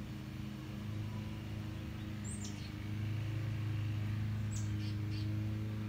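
Outdoor ambience: a steady low mechanical hum that grows louder about three seconds in, with a few short, high, falling bird chirps, the first about two seconds in and more near the end.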